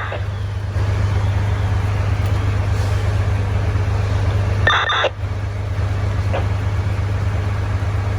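Vehicle engine idling, a steady low hum, with a brief higher-pitched sound about five seconds in.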